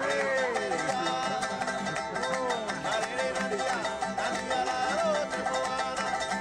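Ukulele strumming chords, with a voice singing over it.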